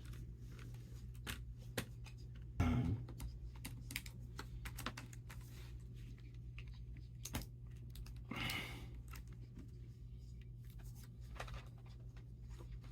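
Plastic laptop display bezel being pressed and snapped into place around the screen: a run of irregular small clicks and taps, with a few louder handling rubs, over a steady low hum.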